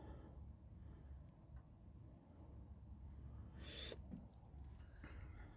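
Faint, steady chirping of night insects over a low background rumble, with one brief noise about four seconds in.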